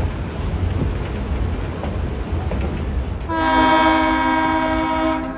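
Passenger train rolling with a steady low rumble of wheels on rail, then about three seconds in the lead EMD FP7 locomotive's air horn sounds one steady chord-like blast of about two seconds, cut off sharply near the end.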